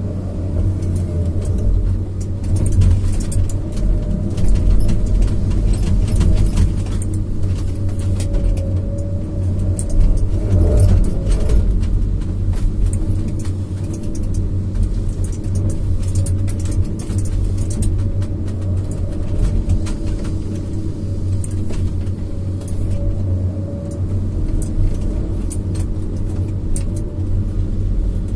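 Komatsu PC200F harvester's diesel engine and hydraulics running steadily under load, heard inside the cab as a deep drone with a thin hydraulic whine. Scattered clicks and knocks come through as the 370E harvester head works a stem, with a louder stretch about ten seconds in.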